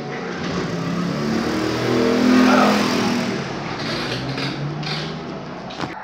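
Engine of a passing motor vehicle, swelling to its loudest about two and a half seconds in and then fading, with a short click near the end.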